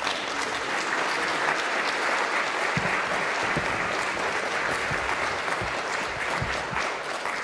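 Audience applauding steadily in a lecture hall, easing off near the end.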